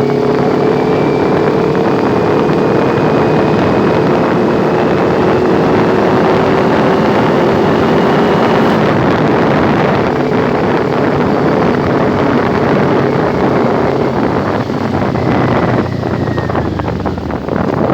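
Kawasaki Ninja 400's parallel-twin engine, fitted with a full-system aftermarket exhaust, running under way. Its note rises slowly in pitch for about nine seconds, then drops. Wind noise on the microphone fluctuates more near the end.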